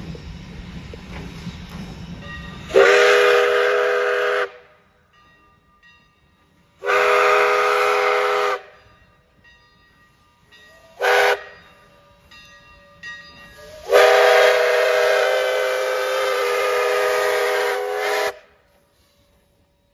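Steam whistle of Western Pacific 165 blowing the grade-crossing signal: two long blasts, a short one and a final long one, each a chord of several tones that cuts off sharply.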